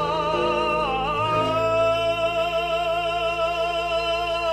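A singer holds one long note with vibrato over instrumental accompaniment. The pitch shifts once about a second in, then the note is held steady.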